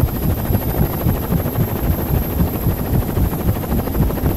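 Helicopter sound effect: main rotor blades chopping in a rapid, steady beat under a thin high whine, laid over the animation of the toy helicopter taking off.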